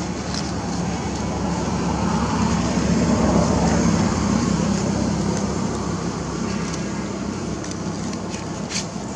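A motor vehicle passing, its engine and tyre noise swelling to a peak a few seconds in and fading away, with a couple of faint clicks near the end.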